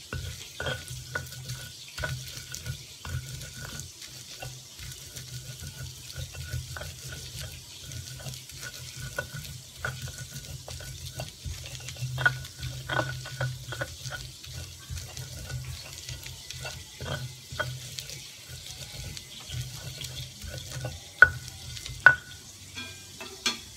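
Stone pestle grinding fried chilies in a stone mortar (ulekan and cobek): continuous wet scraping and mashing with irregular knocks of stone on stone, and two sharp louder knocks about a second apart near the end.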